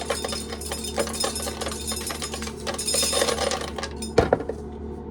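Corn kernels clattering in rapid, dense clicks as corn is shelled, over the steady hum of a running fan. A single loud knock comes about four seconds in, after which the clattering stops.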